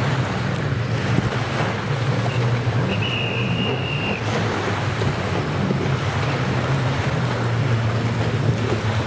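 Wind buffeting the microphone over small surf washing in, with the drone of distant racing personal watercraft (jet skis) out on the water. A brief high steady tone sounds about three seconds in.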